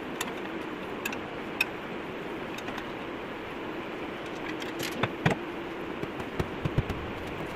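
A steady background hum with scattered small clicks and clinks as objects are handled at a wall shelf unit, with a few louder knocks about five to seven seconds in.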